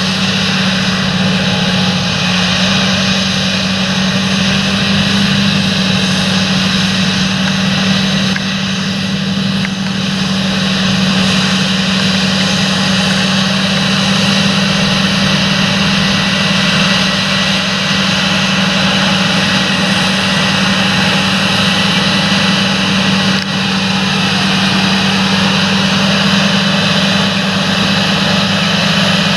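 Large John Deere farm tractor's diesel engine running steadily: a constant drone with a strong low hum.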